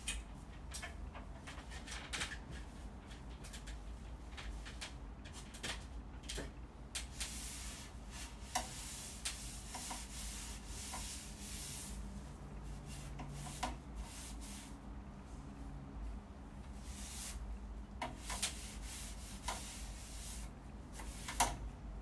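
A cloth wiping along ceiling fan blades in irregular swipes, with scattered light clicks and knocks.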